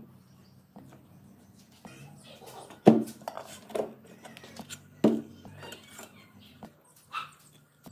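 Workshop handling sounds: a series of knocks and clinks of parts and tools, the two loudest knocks about three and five seconds in, over a faint steady low hum.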